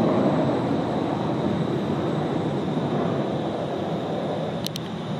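A 1981 Learjet 35A's two Garrett TFE731 turbofans climbing out after takeoff: a steady jet rumble with a thin high whine, slowly fading. Two short clicks near the end.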